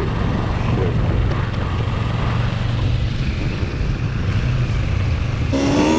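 Motorcycle engine running at a steady road speed on a gravel road, with wind noise on the microphone. Near the end it cuts abruptly to a steadier, clearly pitched engine hum.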